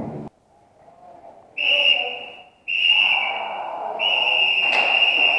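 A whistle blown in three long, steady blasts, starting about a second and a half in, with short breaks between them; the third blast is the longest.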